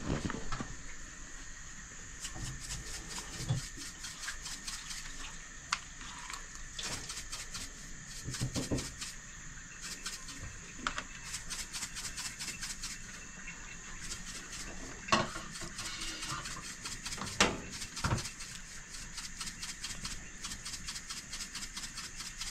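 Metal seasoning shaker shaken over raw fish in rapid light rattling runs, with a few sharper knocks and clicks from handling the fish and the plate. A faint steady high hiss runs underneath.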